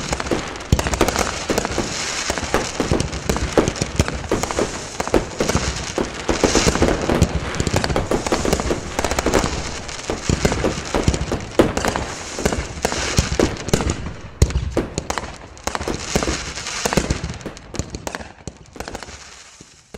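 Fireworks going off: a dense run of bangs and crackling bursts in quick, irregular succession, thinning out and fading away over the last few seconds.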